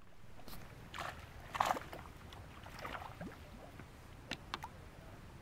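A hooked tilapia splashing at the water's surface as it is pulled in, in a few irregular bursts, the loudest near the middle. A couple of short sharp clicks follow near the end.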